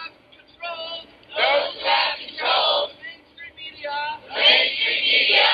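A people's mic: a man shouts a short phrase, then a crowd of men and women repeats it back in unison, louder and more smeared than the lone voice. This call and crowd echo happens twice.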